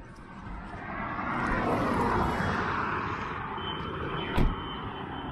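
A vehicle passing on the highway, its road noise swelling to a peak about two seconds in and fading. A single sharp knock comes about four seconds in.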